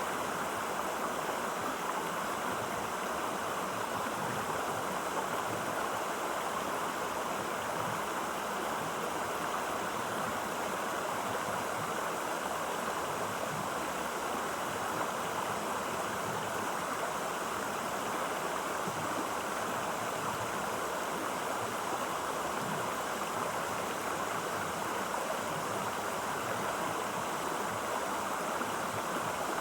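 Steady rushing and babbling of a clear-water stream, an even flow without breaks.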